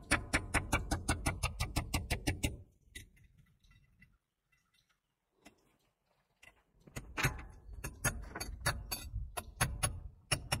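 A hammer tapping rapidly on the screw set in a tube connector, driving the connector into the end of a staircase baluster tube. There is a quick run of strikes, about seven a second, for about two and a half seconds, then a pause of some four seconds, then another run of strikes near the end.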